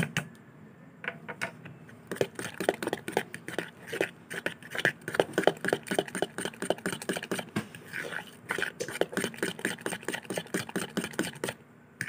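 Metal spoon stirring a thick batter of grated cassava, egg and milk in a bowl: quick, irregular clicks and scrapes of the spoon against the bowl, which stop shortly before the end.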